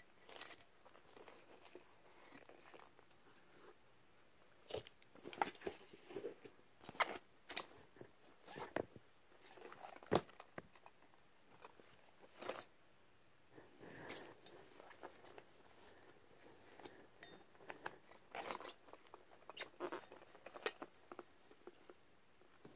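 Hands handling old rubber gas masks: irregular rustling, creaks and light taps and knocks as the masks are turned over and set down on a cloth-covered surface.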